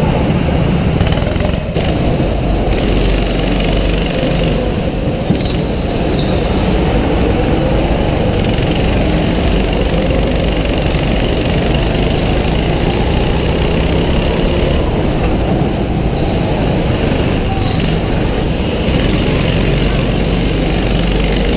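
Go-kart engine running hard, heard from on board the kart as it laps the track. Short tyre squeals cut in through the corners, a few about two to five seconds in and a cluster about sixteen to nineteen seconds in.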